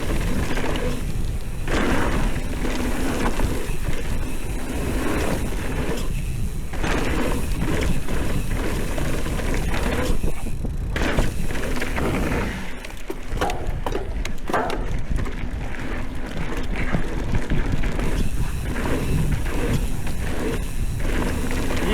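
Mountain bike being ridden down a trail: wind buffeting the on-bike or helmet camera's microphone, with repeated knocks and rattles from the bike over rough ground.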